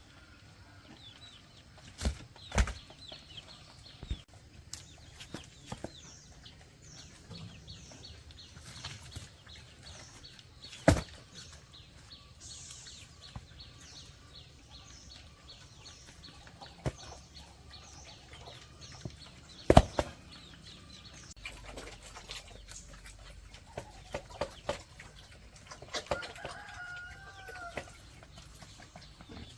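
Chickens clucking, with a few sharp knocks among them; the loudest knock comes about twenty seconds in.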